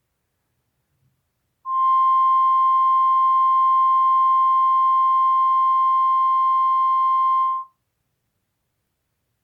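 Emergency alert attention tone: one steady, high electronic tone held for about six seconds, starting about a second and a half in and cutting off abruptly. It is the alarm signal that precedes the spoken alert message.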